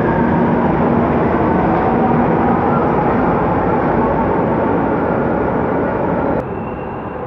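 ČKD Tatra RT8D5M light rail train pulling out of the station: a loud, steady running noise of wheels and motors. About six seconds in the sound drops abruptly to quieter platform noise.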